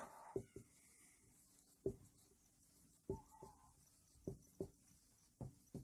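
Faint whiteboard marker strokes as a row of small circles is drawn: about nine soft ticks of the marker tip against the board, one with a brief squeak about three seconds in.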